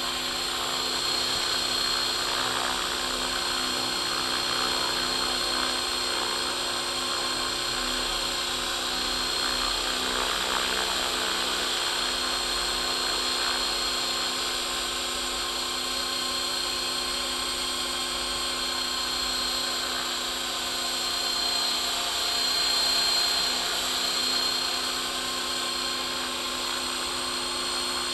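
ALIGN 500 DFC electric RC helicopter hovering, a steady whine of its motor, gears and spinning rotor made of several held tones. It swells briefly a few seconds before the end.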